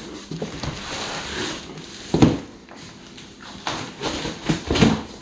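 Large cardboard shipping box being turned over and handled: cardboard scraping and rustling, a loud thump about two seconds in, and several knocks and scrapes near the end.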